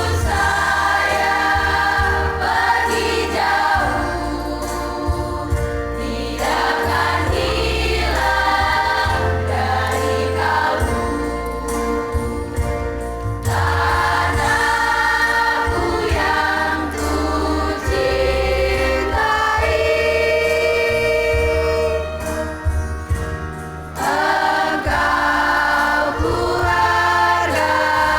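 Choir singing in several voice parts over a steady low instrumental accompaniment, with long held notes that change pitch together every second or two.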